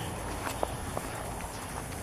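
Footsteps walking on a mown grass path, with a few short light clicks over a low steady rumble.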